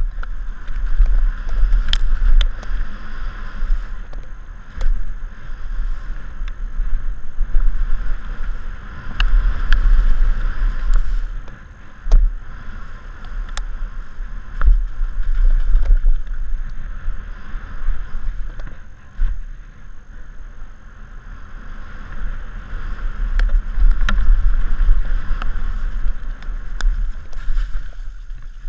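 Downhill mountain bike descending a wet dirt trail: wind buffets the microphone in heavy low rumbles that rise and fall, over a steady rush of tyres on dirt. Sharp clatters and knocks from the bike come every few seconds as it rides over roots and bumps.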